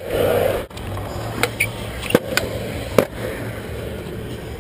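Skateboard wheels rolling on concrete, broken by sharp clacks of the board popping and landing, about three over a few seconds.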